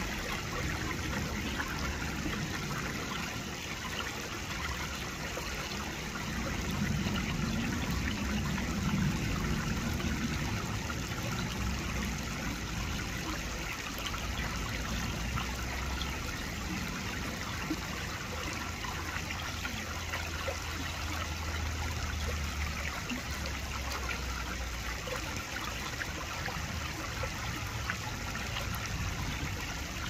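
Shallow rocky creek flowing steadily, water trickling over stones.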